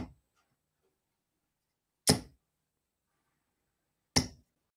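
Steel-tip darts striking a bristle dartboard: two sharp hits about two seconds apart, with the tail of another right at the start.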